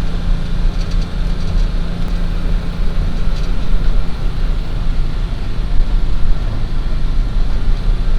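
A vehicle's engine running steadily as it is driven along, a constant low hum under a steady rush of travel noise.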